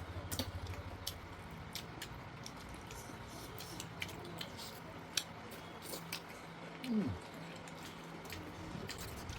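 Eating sounds: scattered small clicks and chewing noises, over a low steady hum.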